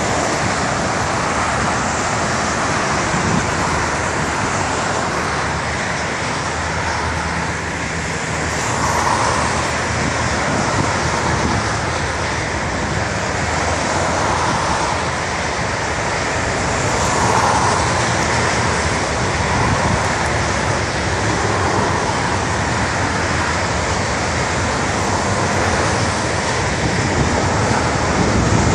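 Steady multi-lane highway traffic: a continuous wash of tyre and engine noise, swelling a little each time a car passes close by.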